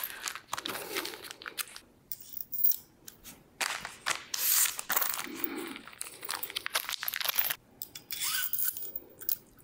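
Small plastic parts bags crinkling and rustling in irregular short bursts as hardware is handled and taken out.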